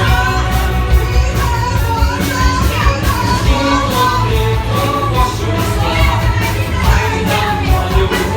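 Amplified orchestra playing a song with a singing voice carrying the melody over a steady beat.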